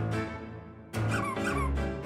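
Edited-in background music, with two short squeaky comic sound effects about a second in.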